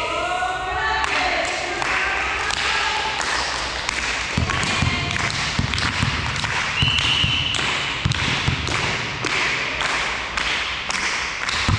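Volleyball play in a sports hall: a run of sharp hits and dull thuds about twice a second, with a short whistle blast a little past halfway.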